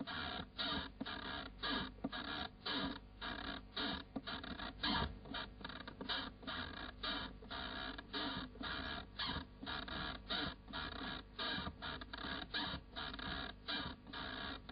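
Rhythmic, machine-like pulsing sound, about two to three even beats a second.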